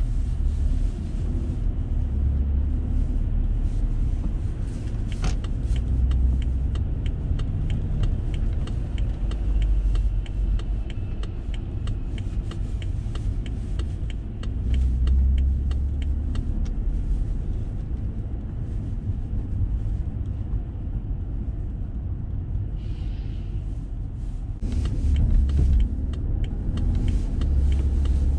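Car driving in city traffic, heard from inside the cabin: a steady low rumble of tyres and engine, with many faint light clicks through much of it.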